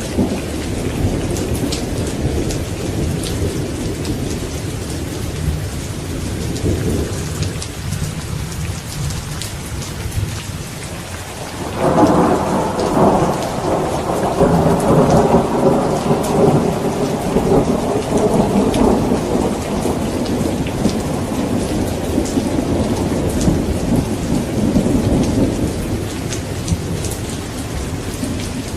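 Steady rain with low rolling thunder. About twelve seconds in, a louder peal of thunder breaks suddenly and rumbles on for several seconds before fading back under the rain.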